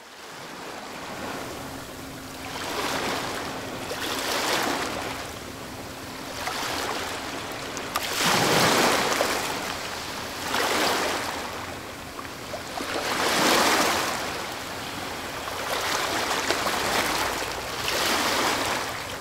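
Ocean waves washing in, surging and falling back about every two to three seconds, with the strongest surges around eight and thirteen seconds in.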